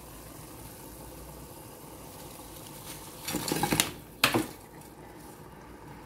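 A pot of water simmering with a low steady hiss; about three seconds in, a rustling clatter as shimeji mushrooms are tipped from a plastic container into the steel pot, then one sharp knock with a short ring against the pot.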